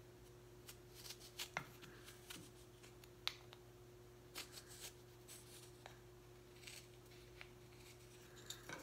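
Faint, scattered light clicks and scratches of a marking gauge worked along the edge of a small walnut piece, over a steady low hum.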